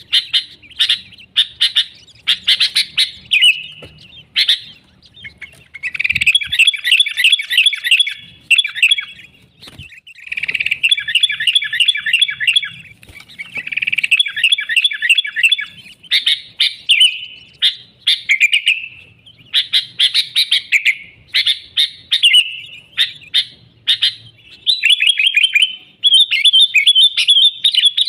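Sooty-headed bulbul (kutilang) singing vigorously: repeated phrases of fast, bubbly chattering notes, each a second or two long, with short gaps between them.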